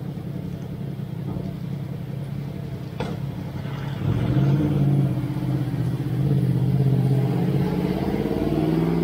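A road vehicle's engine running close by: a steady hum that gets louder about four seconds in and rises in pitch near the end as the vehicle accelerates, over the low rush of traffic on a wet street. A single short click about three seconds in.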